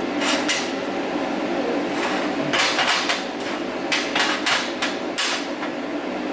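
TIG welder running on a steady hum, with irregular sharp crackles from the arc as filler rod is dipped into the weld puddle.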